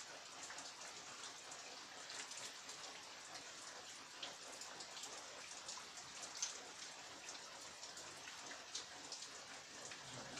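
Heavy rain falling, with a steady hiss and many separate drops pattering and ticking on surfaces.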